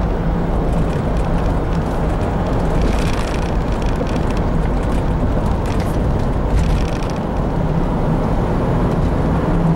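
Steady engine, tyre and wind noise inside the cab of a 1997 Chevrolet Blazer with its 4.3-litre V6, cruising on the road, with a constant low hum. Two brief swells of hiss come about three and six and a half seconds in.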